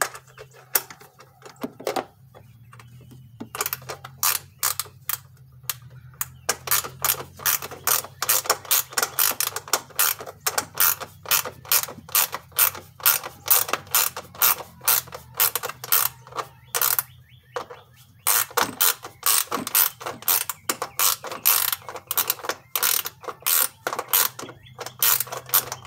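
Ratchet wrench clicking in quick runs as the screws holding a plastic engine cover are turned in, with a short pause about two-thirds of the way through.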